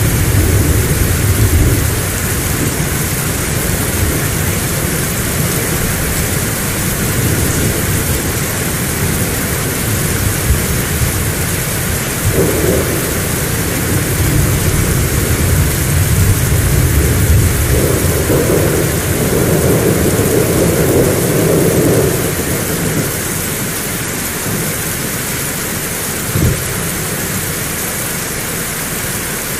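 Heavy rain pouring steadily, with thunder rumbling low underneath and swelling twice past the middle before easing off. A single short, sharp thump near the end.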